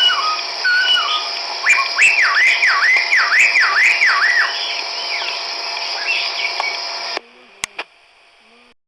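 Chestnut-backed laughingthrush calling: a few short whistled notes, then a run of about six loud swooping whistles that dip and rise again, over a steady high hiss. The recording cuts off about seven seconds in, followed by two clicks.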